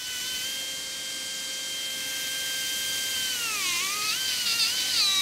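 High-speed rotary carving drill whining as it carves ivory. The pitch holds steady for about three seconds, then dips and wavers up and down.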